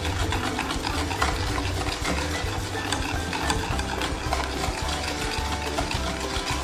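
Wire whisk beating egg batter in a stainless steel bowl, its wires rapidly clicking and scraping against the metal sides.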